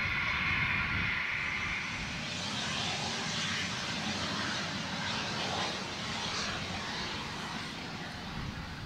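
Jet aircraft engines heard across an airfield. A high whine of several steady tones fades out over the first two seconds and gives way to a steady jet rush.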